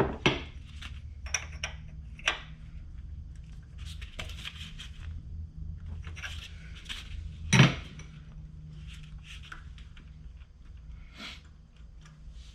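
Metal hand tools and engine parts clinking and knocking in irregular short clicks, with one sharper knock about seven and a half seconds in, over a steady low hum.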